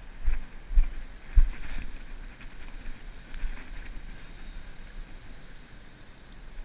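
Wind buffeting the camera microphone, with a few low thumps in the first second and a half, over a steady hiss of water as a hand net is dipped and swept through a shallow tide pool.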